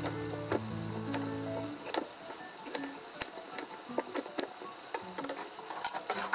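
Kitchen knife cutting an eggplant into lengthwise strips on a wooden cutting board: irregular sharp knocks of the blade against the board, about one or two a second, over a steady sizzle of food frying in a pan.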